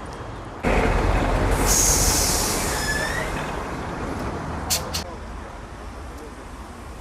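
A heavy vehicle passing close by on the street. It comes in suddenly, gives a brief high squeal near the middle, then fades away, and two sharp clicks follow.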